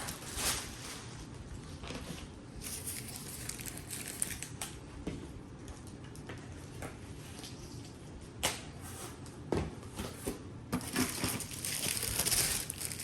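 Packing material crinkling and rustling as speaker-stand parts are unpacked from a box by hand, louder near the end, with a couple of sharp knocks about two-thirds of the way through.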